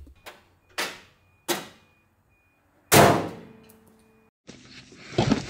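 Two sharp knocks, then a loud metallic clang about three seconds in that rings on for a second or so, from the body of a 1983 Toyota Sunrader truck camper as the driver gets in.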